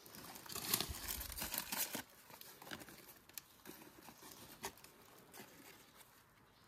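Dry leaves rustling and crinkling as they are handled and laid over a hole in the forest floor, with scattered small crackles. Loudest in the first two seconds, then softer.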